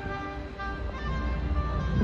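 Background music: a melody of short held notes changing every fraction of a second.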